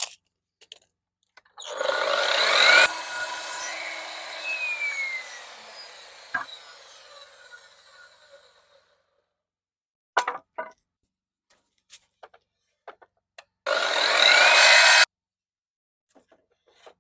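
Chop saw cutting pallet-wood uprights. The saw's motor comes up to speed and the blade cuts through the wood, then the blade runs down for several seconds with a falling whine. After a few sharp knocks from handling the wood, the saw runs again briefly near the end and cuts off abruptly.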